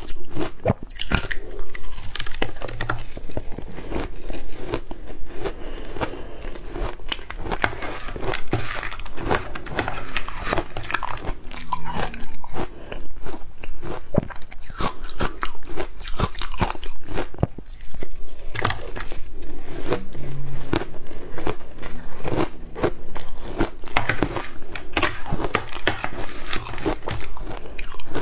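Close-up crunching and chewing of ice: a steady run of irregular sharp crunches and crackles as the ice is bitten and chewed.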